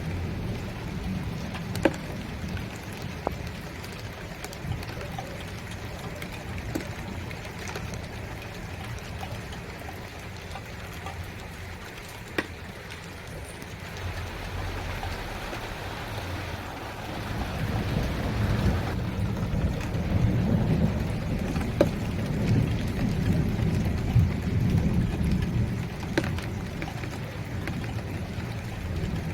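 Rain falling steadily, with scattered louder drops striking a surface. A low rumble of thunder swells a little past halfway and eases off near the end.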